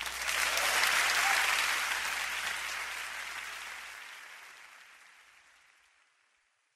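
Audience applause at the end of a live song recording, swelling about a second in and then fading out steadily.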